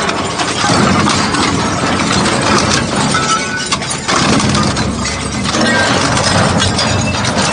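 Hydraulic two-shaft shredder running, its toothed cutter shafts turning with a steady mechanical drone, broken by scattered metallic clanks and crunches as scrap aluminium is chewed and drops out.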